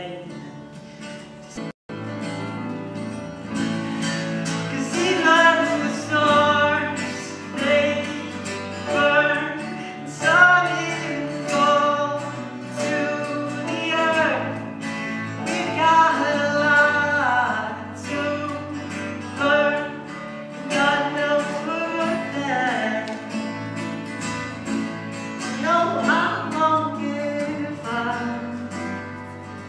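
A young male voice singing a slow ballad to his own acoustic guitar, strummed and picked. The sound cuts out for a split second about two seconds in.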